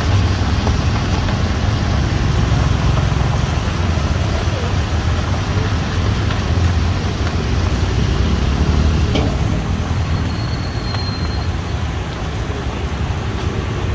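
Crickets deep-frying in a large wok of hot oil: a steady, loud sizzle and bubbling, with a low rumble underneath.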